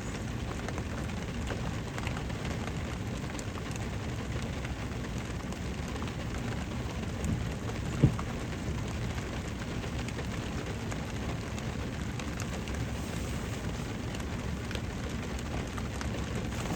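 Steady rain falling on a car, heard from inside the cabin, with one sharp knock about eight seconds in.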